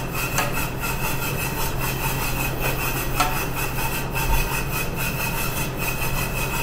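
Commercial pressure cooker venting steam at the end of cooking the fried chicken: a steady, loud hiss with a faint repeated sputter, over a steady hum.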